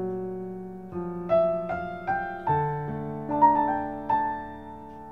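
Slow piano music: single notes and chords struck one after another, each left to ring and fade, the last dying away near the end.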